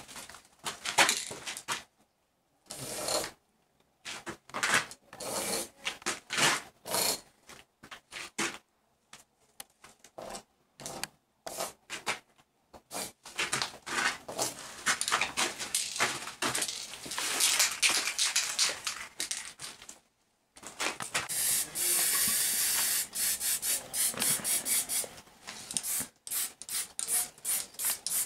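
Aerosol spray-paint can spraying in short hissing bursts, then one longer unbroken spray of several seconds about three-quarters of the way through: graffiti being painted.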